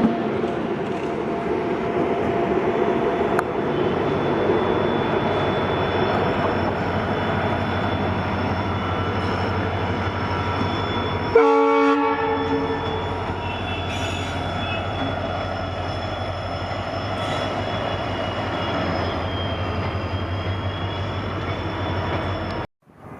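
A train running past with a steady rumble and wheel noise, and one short horn blast about halfway through. The sound cuts off suddenly near the end.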